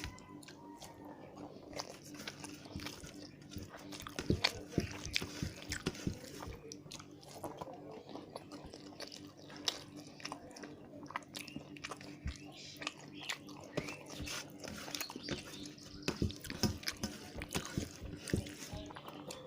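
A person eating close to the microphone: chewing and wet mouth sounds with many small, irregular clicks and smacks, over a faint steady hum.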